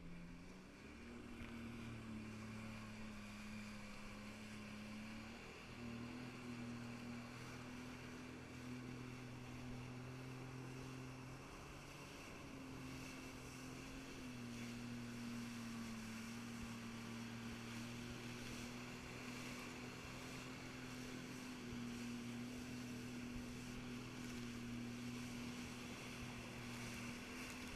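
Jet ski engine running at speed, its tone stepping up and down in pitch several times, over the steady hiss of spray and wind.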